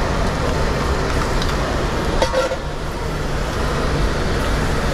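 Commercial restaurant kitchen during service: a steady low rumble of running kitchen equipment, with a few sharp clinks and knocks of pans and utensils.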